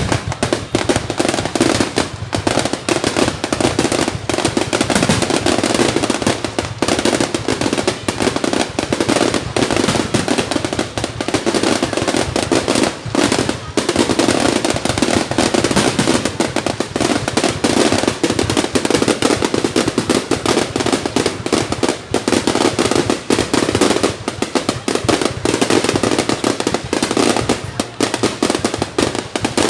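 Fireworks going off without a break: a dense, continuous run of bangs and crackles.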